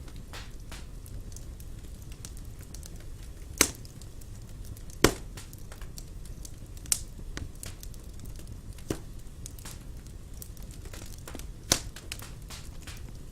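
Wood fire burning in a fireplace: a steady low rumble with frequent small crackles and five sharper pops, the loudest about five seconds in.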